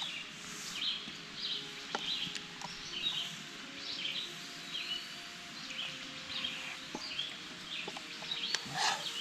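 Songbirds singing: a steady run of short chirping notes, about two a second, with a few sliding whistled notes mixed in and some scattered light clicks.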